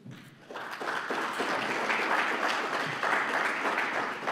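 Audience applauding, the clapping swelling in about half a second in and then holding steady.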